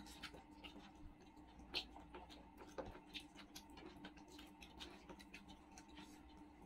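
Faint, irregular small clicks and taps of people eating by hand: fingers tearing paratha and picking food off plates.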